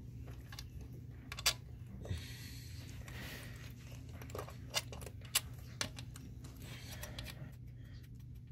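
Scattered small metallic clicks and taps as a replacement high-pressure fuel pump is handled and seated on the engine by hand, over a faint steady low hum. A few sharper clicks stand out, the loudest about five seconds in.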